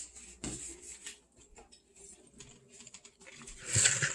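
Light scattered clicks and taps of kitchen work as a raw chicken is handled and cut with a knife on a cutting board, with a louder burst of noise about three and a half seconds in.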